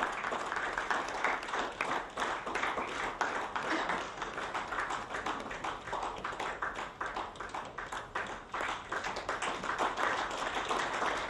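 Audience applauding: many people clapping steadily throughout.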